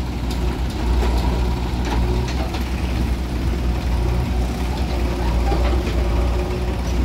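Heavy diesel engines of a JCB 3DX backhoe loader and a tractor running steadily with a low hum, with a few faint clanks.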